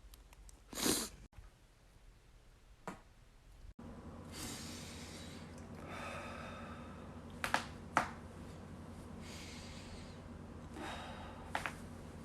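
A person's joints cracking, with breathing and exhales between the pops. There is a short noisy burst about a second in, and after a steady low hum comes in, two loud sharp cracks about half a second apart near the middle, then a few smaller pops near the end.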